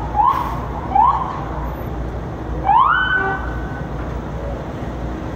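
Emergency vehicle siren blipped in short rising whoops, twice, then a longer rise that holds a steady high pitch for about a second.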